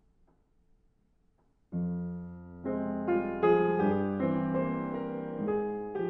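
Solo piano starting a slow ballad intro: near silence, then about two seconds in a chord comes in, followed by a slow run of sustained, ringing chords.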